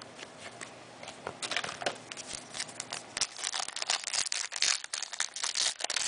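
Crinkling and tearing of a trading-card pack wrapper being opened and handled, sparse at first and busier from about a second and a half in.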